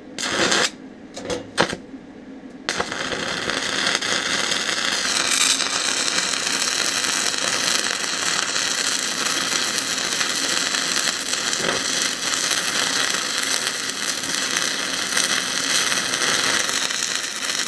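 A 6011 stick-welding electrode arc laying a root pass. It sputters in a few short bursts over the first couple of seconds as the arc is struck, then catches and burns steadily.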